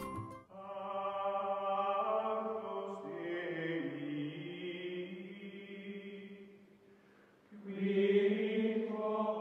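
Outro music of choir-like chanting voices holding long, slowly shifting notes. They fade out about seven seconds in, and a second loud held chord follows near the end.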